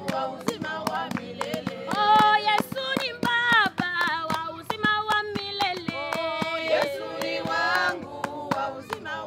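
A group of women singing together, with steady rhythmic hand clapping keeping the beat.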